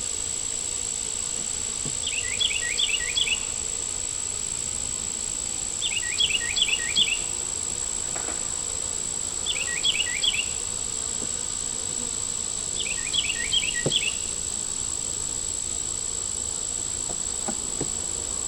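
A steady high-pitched insect drone, with honey bees around the opened hive. Four times, about every four seconds, a short burst of quick chirps breaks over it.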